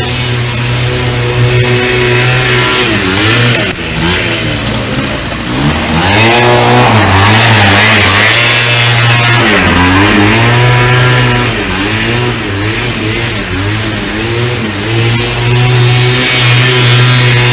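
Honda Dio 18 scooter's 50cc two-stroke single-cylinder engine running after a cylinder replacement, its pitch falling and rising again and again as the throttle is closed and opened on a test run.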